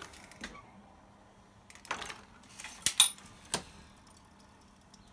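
Sharp metallic clicks and clacks from a Dillon 650 progressive reloading press being worked, a handful scattered over the first few seconds.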